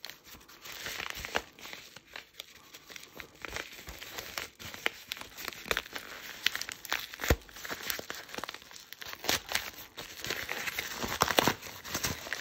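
Mail packaging being torn and crinkled open by hand: irregular crackling and ripping with scattered sharp clicks.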